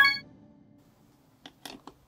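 The last plucked-guitar chord of background music dying away, then a few light clicks of plastic toy train track parts being handled near the end.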